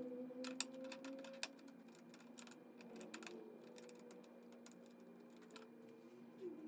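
Faint, irregular clicks and taps of small parts being handled on a table, over a low steady hum.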